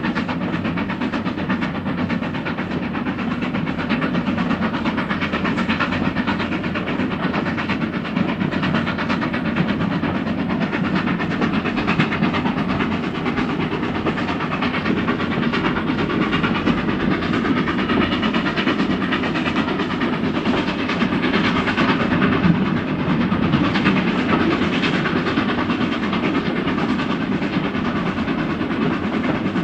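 Steam train running steadily, a continuous dense rush of noise with fast repeated beats.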